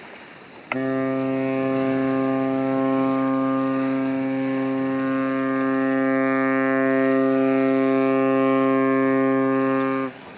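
The ship's horn of the 328 m container ship APL Columbus sounds one long, steady blast of about nine seconds, starting under a second in and cutting off just before the end. It is sounded as a warning to sailing boats in the main channel.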